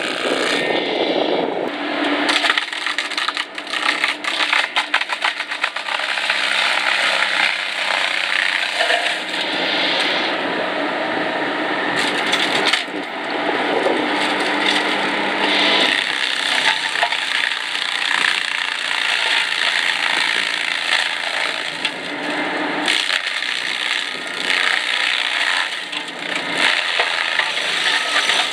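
FX26 Defender forestry mulcher, a toothed drum head on a mini excavator's arm, shredding dry brush and small branches: a loud, steady churning full of cracking and snapping wood, over a steady hum.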